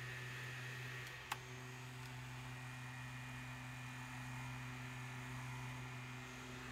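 Small battery-powered fan motor of an LED camping lantern running with a steady hum and a faint high whine. A button click comes about a second in, and the hum's tone shifts slightly after it.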